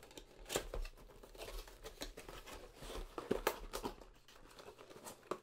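Cardboard retail box being handled and its flap opened: irregular crinkling and scraping of card with scattered small clicks, a few louder ones about half a second in and around three and a half seconds in.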